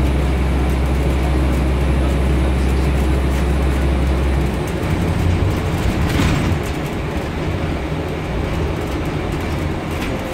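Scania N230UD double-decker bus running, heard from inside on the upper deck: a steady low engine hum that shifts about four and a half seconds in, a brief swell of noise around six seconds, then slightly quieter running.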